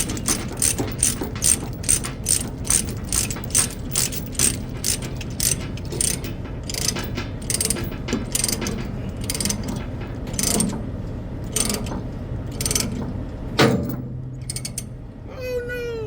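Ratchet chain binder being cranked to tighten a tie-down chain on a heavy load, its pawl clicking about three times a second, steadily at first and then in uneven runs. A low steady hum runs underneath.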